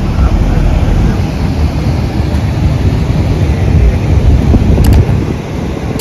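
Steady low rumble of a moving car's road and wind noise, with a couple of faint clicks near the end.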